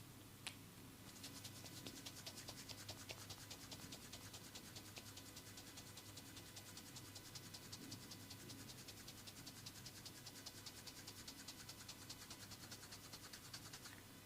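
Faint, fast and even run of soft crisp crackles, many per second, from a masseur's hands rubbing quickly during an upper-body and head massage. A single sharp click comes just before the run starts.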